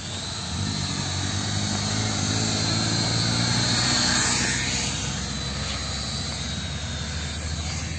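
E88 mini quadcopter drones whining in flight, their small propellers spinning fast. The sound swells to its loudest as one drone flies close by about four seconds in, then eases off.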